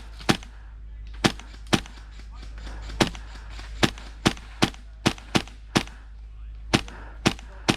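Airsoft replica guns firing single shots: about a dozen sharp cracks at uneven spacing, some in quick pairs.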